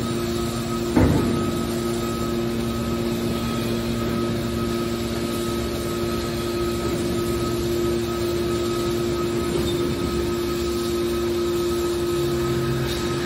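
Hydraulic metal scrap baler running, a steady hum from its motor and pump with one sharp metallic clank about a second in.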